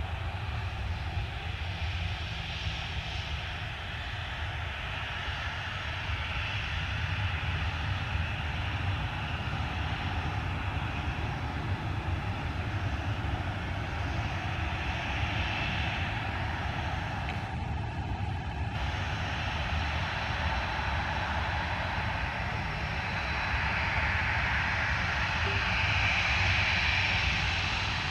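Jet airliner's engines at takeoff power: a steady rumble and rushing whine that swells to its loudest near the end.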